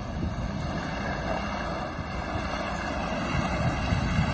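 Nissan Patrol off-road SUV engine running steadily under load as it drives through a rough off-road section, growing a little louder near the end.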